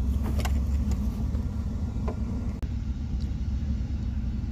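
A steady low rumble with a couple of faint light clicks.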